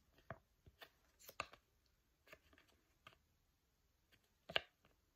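Near silence: room tone with a few faint, scattered clicks, the clearest one about four and a half seconds in.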